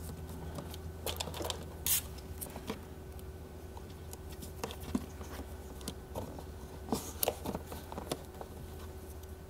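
Scattered light clicks, taps and rustles of a coiled red-and-black battery-charger cable being handled and tucked among plastic engine-bay trim beside the battery, over a steady low hum.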